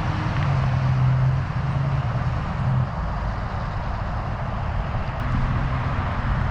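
Car engine running with a steady low hum that fades about three seconds in and comes back near the end, over a constant rushing noise.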